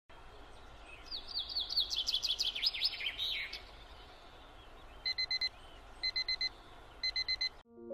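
Birds chirping in a quick run of falling notes. Then a digital alarm clock beeps in three groups of four rapid beeps, one group each second.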